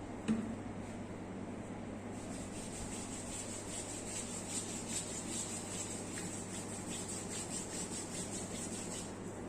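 Hands rubbing and stroking oiled skin during a massage, a continuous rubbing sound over a steady low hum, with one short knock just after the start.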